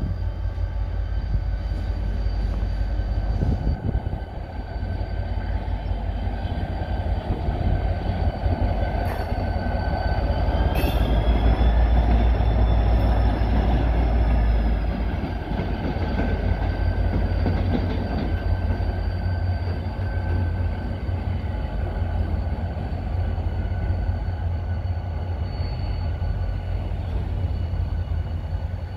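HŽPP class 2044 diesel-electric locomotive running past: a steady low engine rumble with whining tones above it. It is loudest about halfway through as it goes by, with a couple of sharp clicks, then a little quieter as it draws away.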